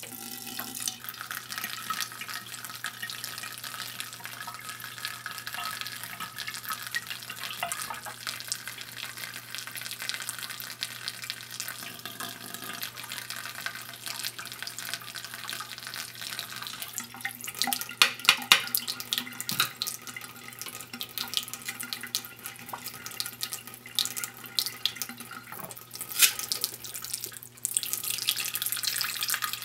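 Bathroom sink faucet turned on to a thin stream, the water splashing steadily into the open drain. A burst of sharper clicks comes about eighteen seconds in, and near the end the stopper is set into the drain and the splashing gets louder as water pools.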